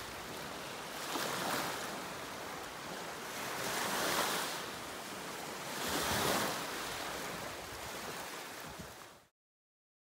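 Small waves breaking and washing onto a sandy shore, the surf swelling and ebbing every couple of seconds, then cutting off abruptly near the end.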